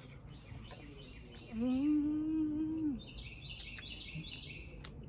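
A woman humming a long, steady 'mmm' with her mouth closed while chewing, about a second and a half long, over songbirds chirping repeatedly in the background.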